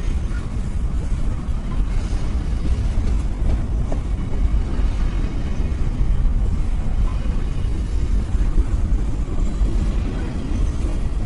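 Diesel locomotive running with a steady, deep rumble.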